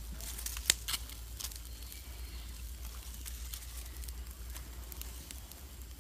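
Small open fire of sticks and dry leaves crackling, with a sharp pop a little under a second in, a second one just after, and scattered small snaps.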